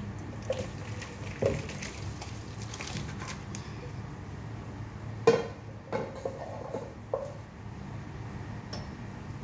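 Cooking pot being handled and set down on the kitchen counter: a few scattered clanks and knocks, the loudest about five seconds in, over a steady low hum.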